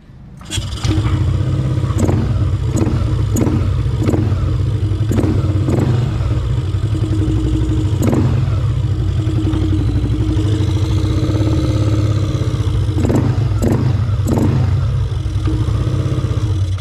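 Yamaha Aerox 155 scooter's single-cylinder engine running loudly through an aftermarket JVT V3 adjustable exhaust pipe and a ram air intake. It idles steadily, cut by a series of short, sharp throttle blips.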